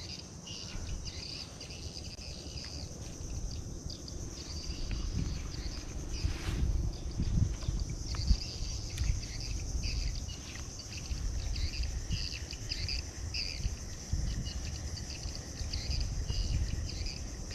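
Insects chirping in repeated pulsing trills, over a low rumble.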